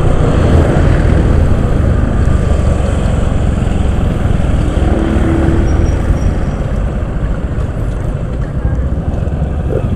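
Motorcycle riding noise picked up by a bike-mounted action camera mic: wind buffeting the microphone over the engine and road rumble.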